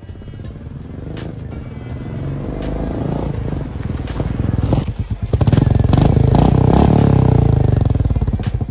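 Royal Enfield Meteor 350's single-cylinder engine running through an aftermarket megaphone silencer as the motorcycle rides up, growing steadily louder and loudest for the last few seconds, then easing off as it pulls up.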